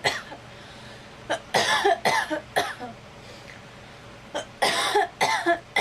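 A girl coughing in two fits of several coughs each, one about a second and a half in and the other about four and a half seconds in.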